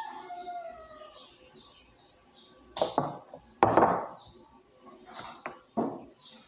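A wooden table being wiped down with a cloth: a sharp knock, then a few short swishes and a click as the cloth and hands move over the wood. Small birds chirp faintly in the background.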